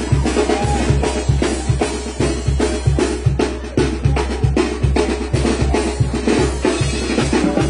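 Drum-driven music for a danza, with a fast, even beat of about four drum strikes a second.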